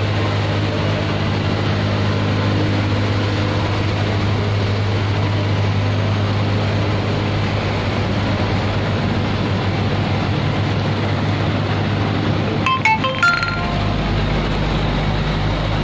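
Boat engines running with a steady low drone as a loaded cargo boat and a steel barge motor through a river sluice gate. A few brief metallic clinks sound about thirteen seconds in, and a deeper rumble joins near the end as the barge's stern engine passes close, putting out exhaust smoke.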